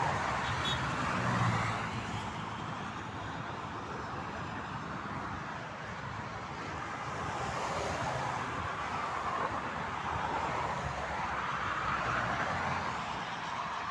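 Motorway traffic: vehicles passing at speed one after another, their tyre and wind noise swelling and fading as each goes by, with a low engine hum in the first couple of seconds.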